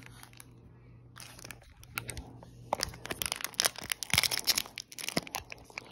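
Foil Yu-Gi-Oh! booster pack wrapper crinkling and tearing open by hand, a quick run of sharp crackles starting about two seconds in.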